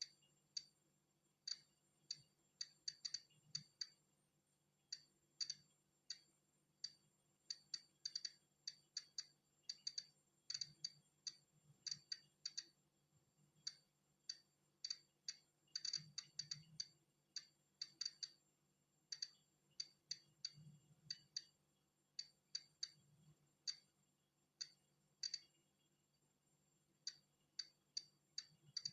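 Polon EKO-C digital Geiger counter clicking at irregular, random intervals, roughly two sharp clicks a second and sometimes several in quick succession: each click is a detected particle of natural background radiation.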